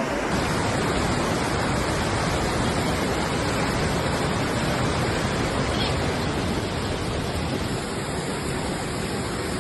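Fast-flowing floodwater rushing steadily, an even noise with no separate splashes or knocks.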